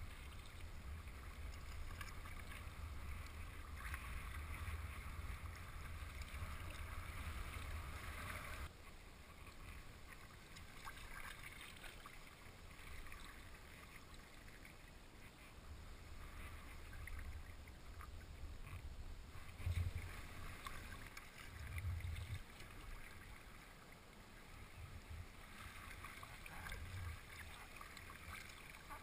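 Water lapping and splashing against a kayak's hull, with wind rumbling on the camera microphone. The sound shifts abruptly about nine seconds in and again near the end.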